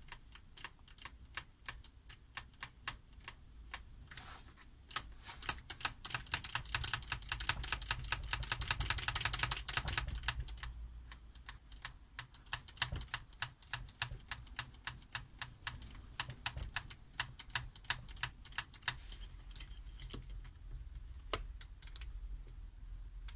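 Many small, irregular plastic clicks and taps from hands fitting the trigger and wiring into a G36C airsoft rifle's plastic lower receiver and pistol grip. The clicking comes thickest and quickest about a quarter of the way in, then thins out.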